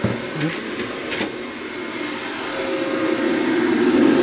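Steady machine hum that grows louder toward the end. About half a second to a second and a quarter in come three light metallic clicks as the stainless steel tissue-processing baskets are handled.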